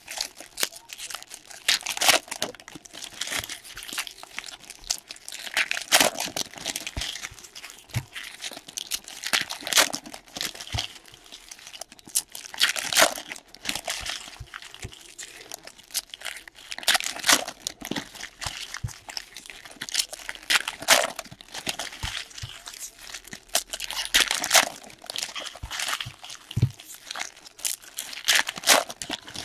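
Foil trading-card pack wrappers crinkling and tearing as sports-card packs are opened and handled, in irregular crackly rustles with louder tears every second or two.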